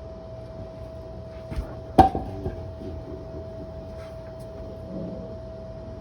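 A single sharp knock about two seconds in, as of a hard part or tool being set down or struck, ringing briefly, with a lighter click just before it and a few small rattles after. A faint steady hum runs underneath.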